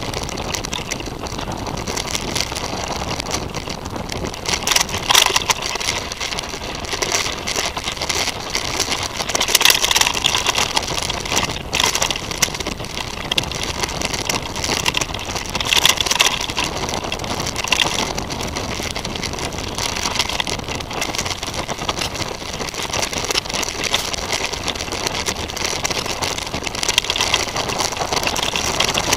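Titus FTM mountain bike rolling fast over a grassy forest trail, picked up by an action camera mounted on the bike: a steady rushing noise of tyres and air, with louder rattles and knocks now and then as the bike goes over bumps.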